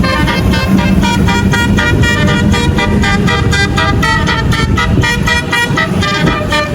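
Tour bus's 'basuri' telolet musical horn playing a fast melody of short notes that change pitch every fraction of a second, over a low engine rumble.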